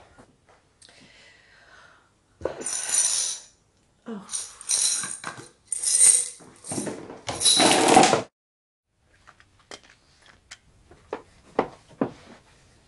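Metal kitchenware rattling and clattering in five bursts over about six seconds, with a metallic ring, then a few light clicks and taps.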